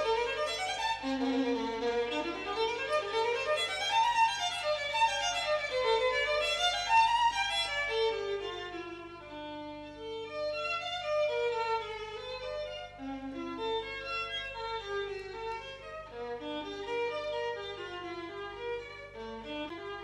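Violin music playing fast runs of notes that climb and fall, louder in the first half, over a faint steady low hum.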